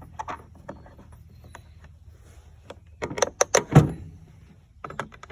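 Clicks and knocks of a scrench working the screws on a chainsaw's plastic top cover, with a cluster of louder clatter about three to four seconds in.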